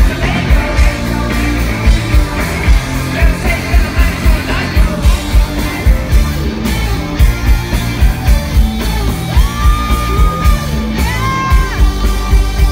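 Live rock band playing loud amplified music: a steady pounding drum beat and heavy bass, electric guitar, and the singer's yelled vocals. A long held high note sounds about three-quarters of the way through.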